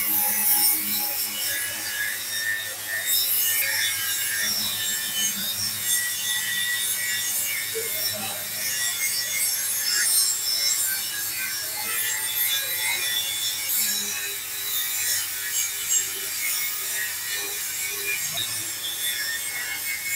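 Continuous scratchy scraping and rasping of steel being worked, with stronger surges at the very start and about three seconds in.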